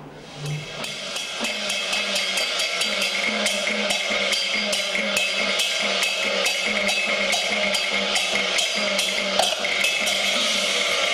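Cantonese opera percussion ensemble playing: rapid, even strikes over ringing gongs and cymbals, swelling in over the first couple of seconds and then holding steady.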